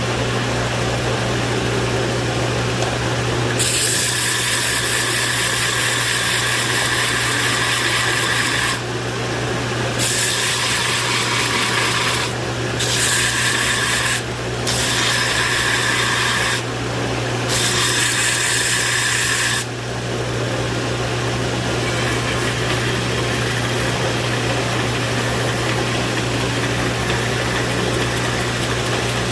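Electric power tool running with a steady hum, grinding into steel in five bursts of harsh hiss between about four and twenty seconds in, then running on without contact.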